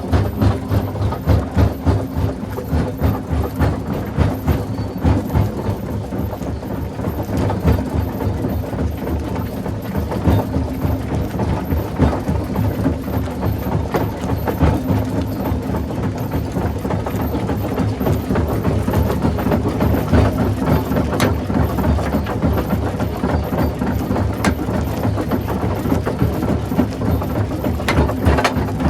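Rock crushing machine running, a steady low rumble with frequent knocks.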